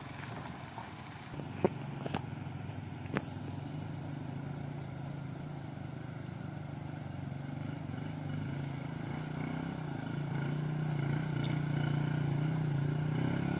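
A vehicle engine running steadily, slowly growing louder toward the end. A few sharp clicks come in the first few seconds.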